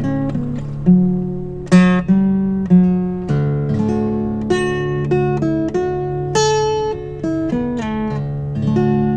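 Acoustic guitar instrumental music: a steady run of plucked notes and strummed chords, with no singing.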